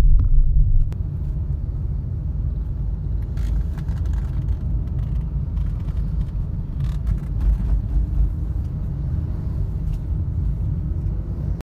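Steady low rumble of a car driving, engine and road noise heard from inside the cabin, a little louder for the first second.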